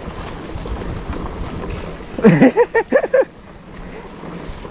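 Mountain bike descending a leaf-littered dirt trail: wind on the microphone and tyre and trail rumble make a steady rushing noise. About two seconds in, a rider's voice calls out briefly.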